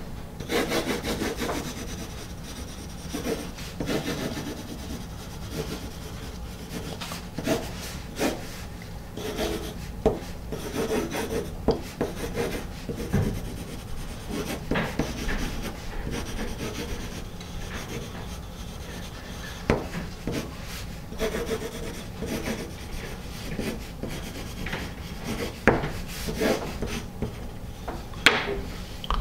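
Pencil writing in cursive on a sheet of paper: the graphite point scratching in irregular strokes, with scattered sharper ticks as the point lands and lifts, and a louder click near the end.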